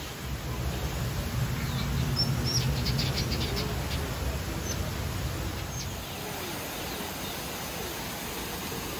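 Small birds chirping in an aviary, with a quick run of high chirps about two to three seconds in, over a steady background hiss.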